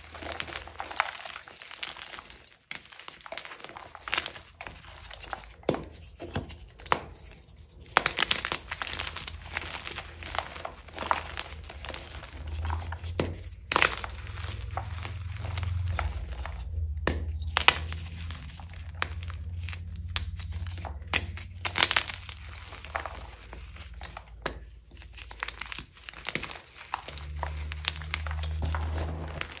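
Soft dyed gym chalk blocks crushed and crumbled by hand, giving a dense, irregular crunching and crackling as they break into small pieces and powder.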